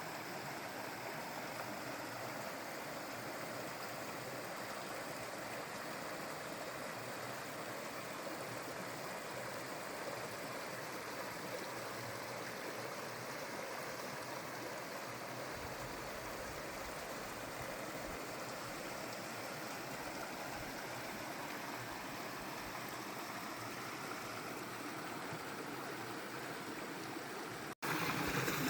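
Creek water flowing steadily over rocks, an even rushing sound. It cuts out for an instant near the end and comes back louder.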